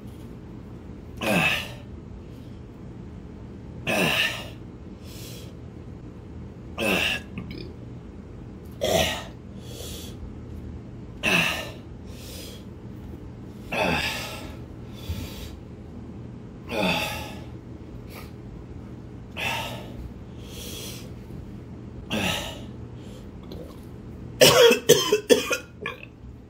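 A man coughing hard, one cough every two to three seconds and then a quick run of coughs near the end, as the burn of a 9-million-Scoville chili chocolate bar builds in his mouth and throat.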